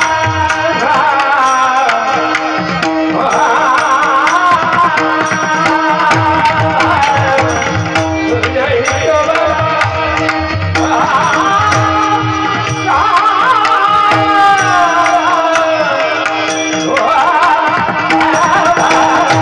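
Marathi devotional kirtan singing: a voice sings long, wavering melodic phrases over rapid tabla strokes and a steady drone.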